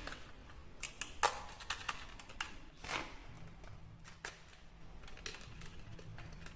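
Irregular light clicks and taps of toys and their packaging being handled and fitted together, about one or two a second.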